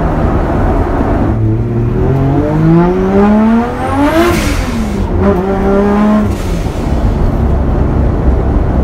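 Nissan Cefiro A31 drift car's engine accelerating hard, heard inside the stripped, unsound-deadened cabin. Its pitch climbs steeply for about three seconds, drops suddenly at an upshift about four seconds in, and holds higher for another two seconds before the note eases off into a rougher steady drone.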